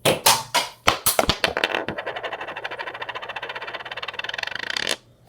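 A fidget spinner hitting a running ceiling fan: a few loud clacks, then a rapid, even clatter as the fan blades strike it over and over. The clatter stops suddenly about five seconds in. The spinner comes out damaged, no longer able to spin.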